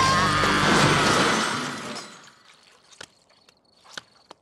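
Cartoon sound effect of a load of trash crashing down, a loud clattering, splashing rush lasting about two seconds that then dies away. Faint pulsing chirps and a few light ticks follow.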